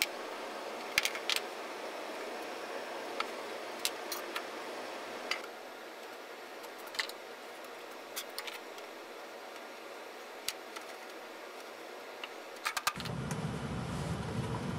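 Scattered light clicks and taps of small hand tools and metal hardware being handled against a pine board, over a steady background hiss. Near the end a louder, lower steady room noise comes in.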